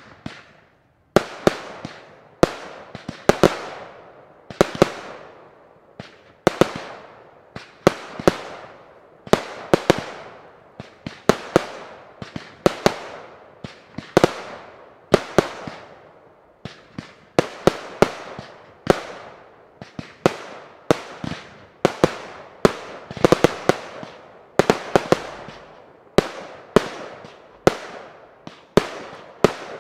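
Professional fireworks display: sharp bangs about once a second, each trailing off in a fading crackle and echo, with a few closer pairs.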